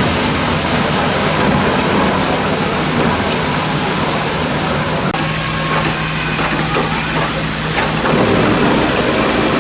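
KRAFTER RD 600 log debarking machine running and stripping bark from a birch log: a loud, continuous rush of noise with a low machine hum, which holds steadier for a few seconds past the middle.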